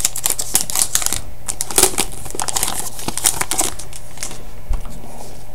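Hockey card pack wrapper crinkling and crackling as it is worked open by hand, busiest for the first few seconds and then sparser.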